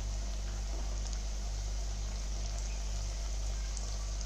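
Corn pakoras deep-frying in hot oil: a steady sizzle with faint small crackles. A low steady hum runs underneath.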